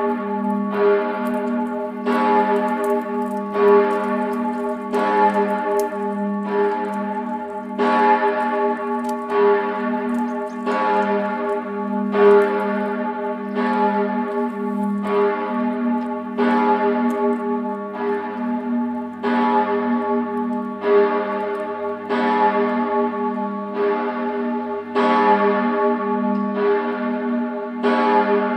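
A single large cast-steel church bell, the Bochumer Verein bell of 1957 tuned to A-flat, swinging and tolling. Its clapper strikes about once every 1.3 seconds, and each stroke rings on into the next.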